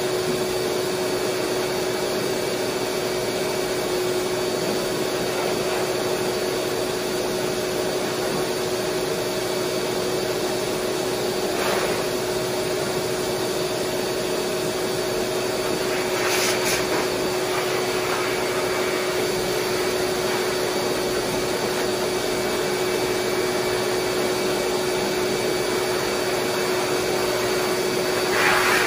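High-velocity dog grooming dryer blowing through its hose and nozzle: a steady motor hum under a rushing hiss of air, which swells briefly three times.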